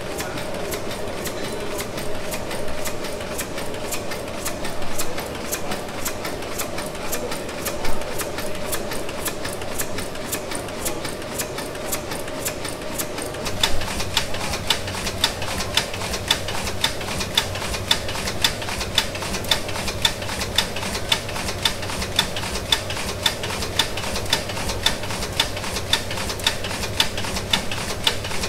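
Sulzer tandem-compound steam engine running steadily, a continuous mechanical clatter with a faint hum and a few louder knocks. About halfway through, close to the high-pressure cylinder's valve gear, the sound becomes an even, rhythmic clicking: a sharp click about once a second with lighter ticks in between.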